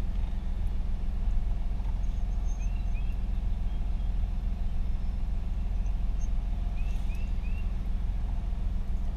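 2019 Chevy Colorado's engine idling steadily, heard from inside the cab as an even low rumble. A few short, high whines come in small clusters about two and a half seconds in and again near the end.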